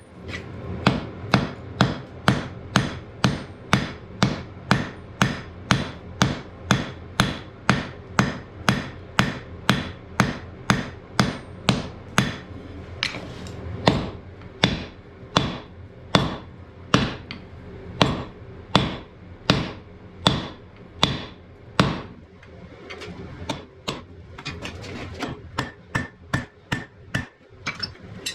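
Blacksmith's hammer striking iron on an anvil in a steady rhythm of about two blows a second, each blow ringing. The blows become lighter in the last few seconds.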